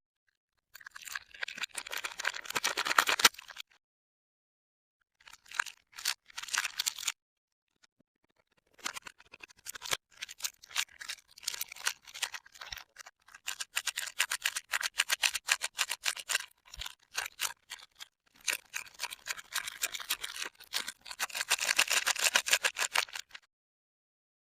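Packaging crinkling and rustling as bars of soap are unwrapped: three stretches of crisp crackling, the last one long, with dead silence between them.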